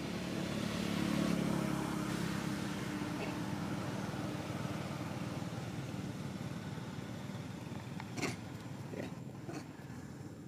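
A motor engine drones steadily, swelling about a second in and then slowly fading, with a few sharp clicks near the end.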